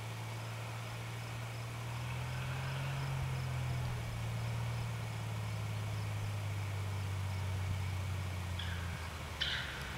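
Socata TB-20 Trinidad's six-cylinder piston engine and propeller droning steadily as the plane comes in to land, with insects chirping in an even rhythm. The engine tone changes near the end, and a brief high squeak comes as the wheels reach the runway.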